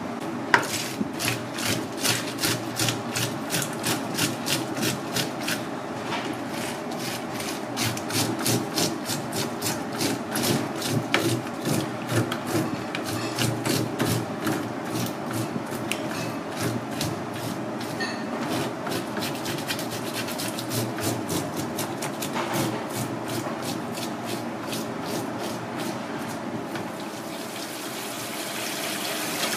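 A serrated fish scaler scraping the scales off a whole fish in quick, regular strokes, about three a second. Near the end the scraping stops and tap water runs over the fish.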